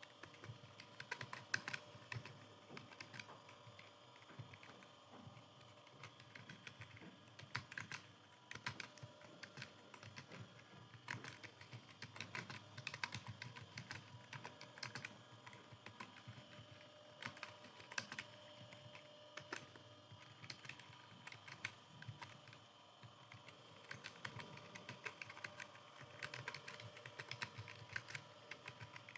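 Computer keyboard being typed on fast and continuously: a dense, uneven stream of key clicks, several a second.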